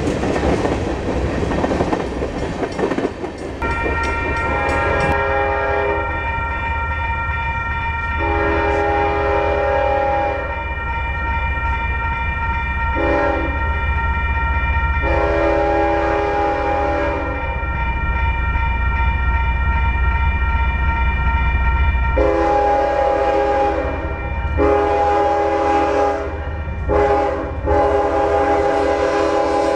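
For the first few seconds a freight train's cars roll past with clattering wheel noise. Then a crossing's warning bell rings steadily while an approaching CSX freight locomotive blows its chime horn twice in the long, long, short, long grade-crossing pattern, over a low engine rumble.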